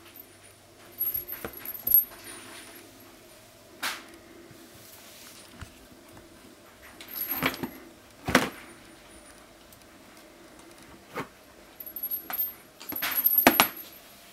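Ginger kitten growling in short owl-like hoots while guarding a plush toy, in several bouts, mixed with rattling and clatter as the toy and its plastic wand are dragged over the floor.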